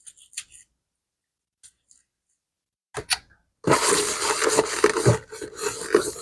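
A few light clicks, then about three and a half seconds in a loud, rough scrubbing starts as the leather bag is cleaned with soap and water.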